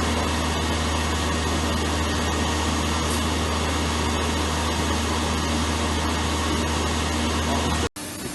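MAS SP 280 Y CNC lathe running, a steady machine noise with a strong low hum and a few constant tones. The sound cuts off abruptly near the end.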